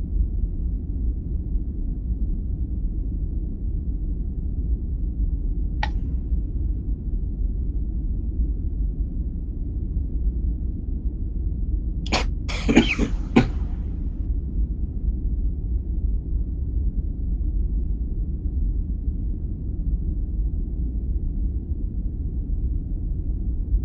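A person coughing, a few short coughs about halfway through, over a steady low rumble.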